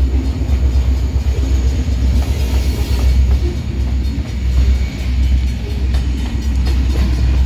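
Loaded freight train's covered hopper cars rolling past close by: a steady, loud rumble of wheels on the rails with clicking from the wheels over the track.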